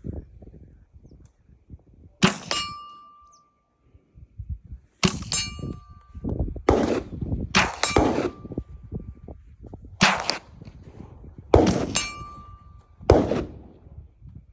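.22 LR rifle shots at steel targets: about ten sharp cracks, irregularly spaced, several followed by a short metallic ring of the struck steel.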